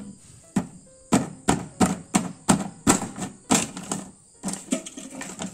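Paper crinkling and tearing as a paper cover is peeled off by hand: a run of sharp crackles, roughly three a second.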